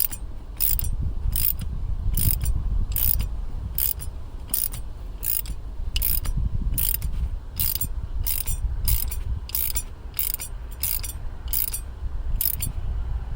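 Ratchet clicking steadily, about two to three clicks a second, over a low rumble of handling, as a brake line flare tool is tightened down to form a DIN flare in the line.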